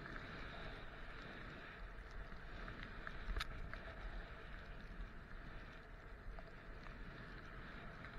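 Skis sliding and carving over packed snow, a steady hiss, with a low wind rumble on the microphone. One sharp click comes about three and a half seconds in.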